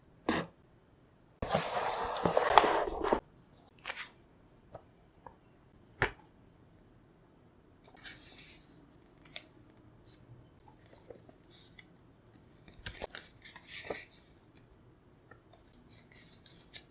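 Packaging being handled: a loud crinkling, tearing rustle about a second and a half in that lasts nearly two seconds, then scattered clicks, taps and short rustles.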